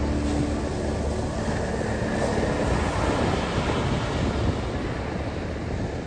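Small ocean waves breaking and washing up a sandy beach, a steady rush of surf.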